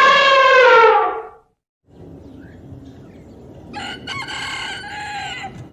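Rooster crowing: a long, loud crow that falls slightly in pitch and ends about a second and a half in, then, after a short gap, another crow against background noise near the end.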